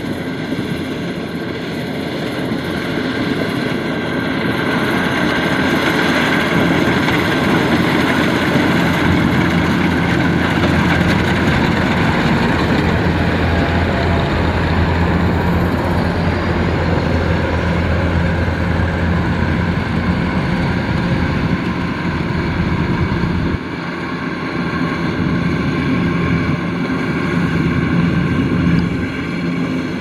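Kubota rice combine harvester running under load, its diesel engine and threshing machinery making a steady drone. It gets louder a few seconds in, and the low part of the drone drops away abruptly about three-quarters of the way through.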